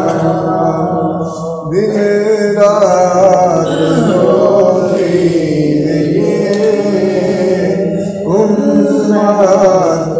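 A man's voice chanting an Urdu devotional salam in a slow, melismatic style, with long held notes and two short breaks between phrases, over a steady low drone.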